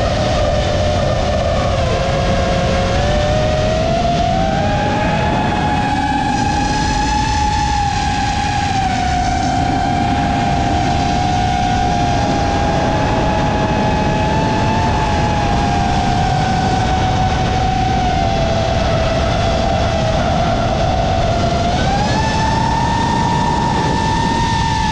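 An FPV quadcopter's EMAX 2207 1700KV brushless motors on 6S, spinning Gemfan Hurricane props, whine in flight over a constant rush of wind. The pitch shifts with throttle: it rises about four seconds in, rises again near the end, then falls away.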